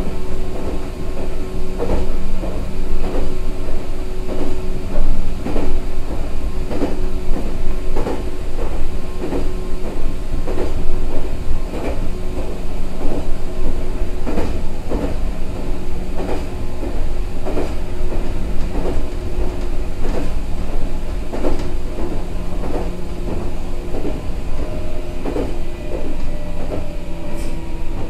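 Meitetsu 6000 series electric train running at steady speed, heard from on board: a continuous rumble and steady hum, with regular clacks of the wheels over rail joints about once a second.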